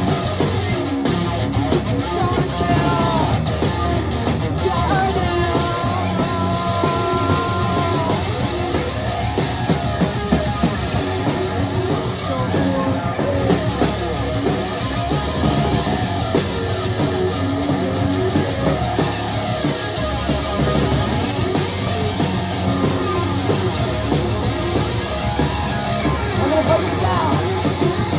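Rock band playing a fast, loud song: electric guitar and drums, with sung vocals.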